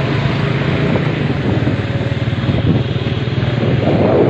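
Engine of a moving vehicle running steadily as it drives along, with a dense, even firing rhythm.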